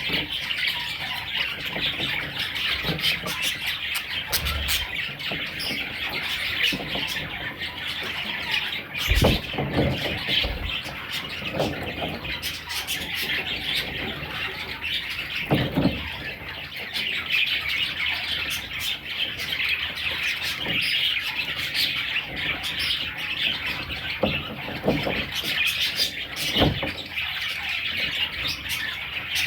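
A flock of budgerigars chattering and chirping without a break, many calls overlapping, with occasional squawks. A few dull thumps stand out, about 9, 10, 16 and 27 seconds in.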